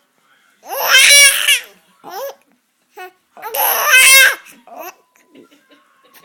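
A baby vocalising: two loud, high-pitched babbling squeals with laughter in them, each about a second long and some three seconds apart, with a few short, quieter sounds between.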